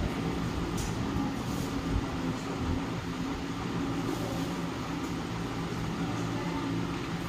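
Steady low mechanical hum with a few faint light taps.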